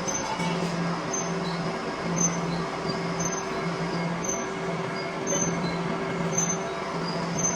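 Metalworking machine running in a workshop, a steady mechanical noise with a low hum that pulses on and off about every 0.8 seconds, like a repeating cutting stroke.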